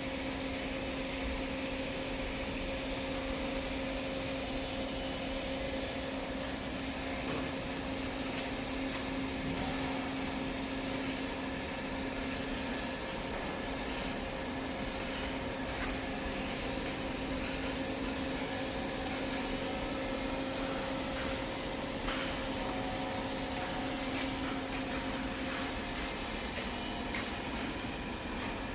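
TIG welding on stainless steel pipe: a steady electrical hum over an even hiss.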